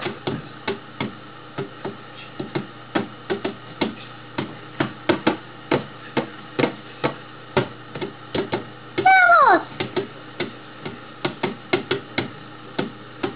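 Cartoon soundtrack played through a TV speaker: a quick, uneven run of sharp knocks, two or three a second. About nine seconds in there is a short cry that glides steeply down in pitch.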